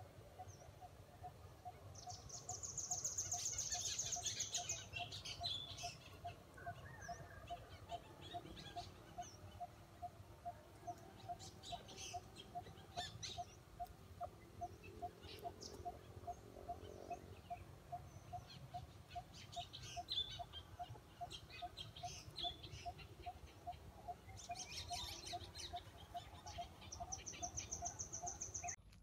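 Forest ambience: wild birds giving short scattered chirps, with a high insect-like buzz about two seconds in and again near the end. Under it a faint, even pulsing note repeats about twice a second.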